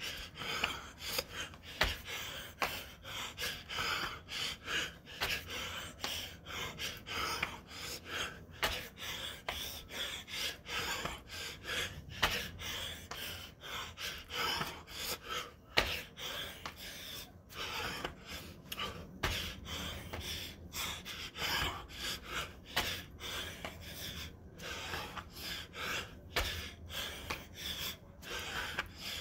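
A man panting hard from the exertion of doing burpees, with quick, rhythmic gasping breaths. There are a few sharp thumps, such as hands or feet landing on the mat, including one about two seconds in.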